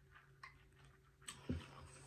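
Faint sips through a straw, then a single dull thump about one and a half seconds in as a plastic tumbler is set down on the table.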